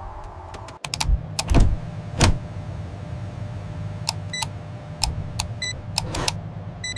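Music cuts off near the start, then a low steady hum runs under a string of sharp clicks and knocks. Four louder knocks come in the first couple of seconds; after them come lighter ticks, a few of them short high beeps.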